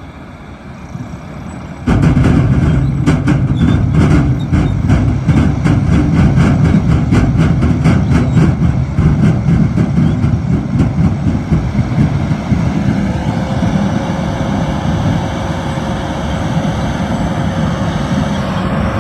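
Heavy diesel farm machinery at sugar beet harvest, cutting in loudly about two seconds in with a rapid clatter for several seconds, then settling to a steady drone.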